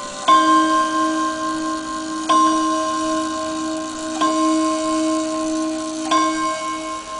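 Gustav Becker Westminster mantel clock striking on its chime rods: one note struck four times, about two seconds apart, each stroke ringing on into the next.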